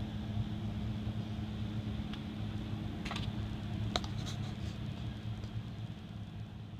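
A steady low hum with a few light clicks, about two, three and four seconds in.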